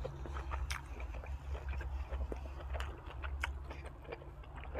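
A person chewing and biting food close to the microphone, with many small irregular wet clicks, over a steady low hum.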